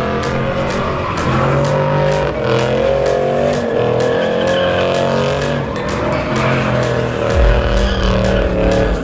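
Car engine held at high revs, rising and falling, with tyre squeal as the car spins doughnuts in its own tyre smoke. A heavy low rumble comes in near the end.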